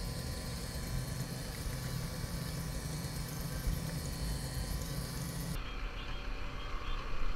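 An engine running steadily aboard a bowfishing boat, a low even hum with hiss over it. A little over two-thirds of the way through, the sound changes abruptly and the hum and hiss largely drop away.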